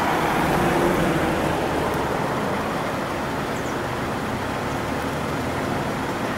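Steady road traffic noise, the engines of vehicles on the road running.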